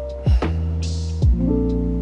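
Background music: deep, falling drum hits about once a second under held, sustained notes, with a short hissing swell about a second in.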